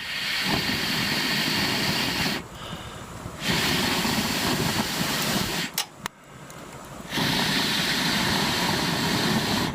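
Three long blows through a fire-blowing pipe into a campfire, each a steady rushing hiss of about two seconds, with a short pause for breath between them.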